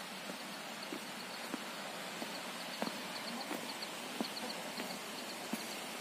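Footsteps on a stone path at a steady walking pace, soft regular steps about every two-thirds of a second, over the steady hiss of a damp forest with faint high insect chirping.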